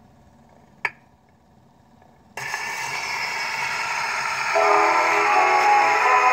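A single sharp click about a second in. Then, from about two and a half seconds, the loud steady surface hiss of a 1922 shellac 78 rpm record playing on a portable gramophone. Through it, about four and a half seconds in, the orchestral introduction of the recording begins.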